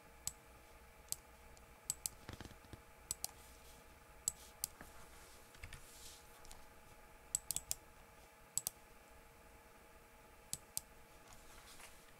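Scattered sharp clicks of a computer mouse and keyboard, some in quick pairs, over a faint steady hum.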